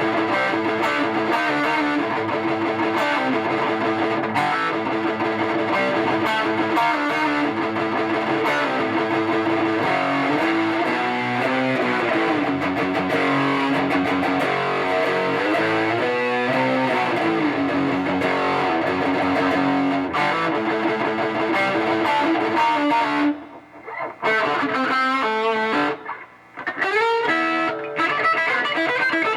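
Electric guitar played through a Fender Twin Reverb tube amplifier: sustained notes and runs with string bends, with two short breaks near the end. The amp is being sound-tested after its restoration from flood damage.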